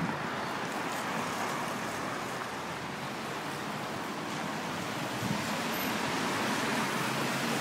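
Road traffic passing on a wet, slushy street: a steady hiss of car tyres and engines, growing a little louder toward the end.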